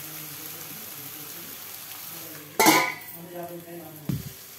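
A steel spoon stirring curry in a stainless steel pot with a faint sizzle. About halfway through comes a single loud metallic clang as a steel lid is set on the pot.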